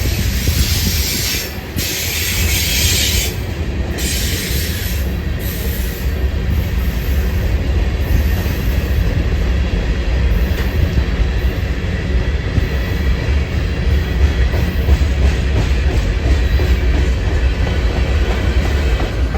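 CSX freight train rolling past on the rails: a steady heavy low rumble with wheel and rail noise. There are bursts of high-pitched wheel noise during the first five seconds or so.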